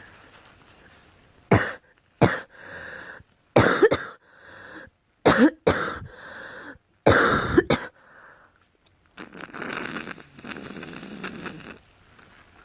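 A girl coughing in about five sharp bouts, some coming in quick pairs, with softer noisy breaths between them and a longer stretch of noisy breathing near the end.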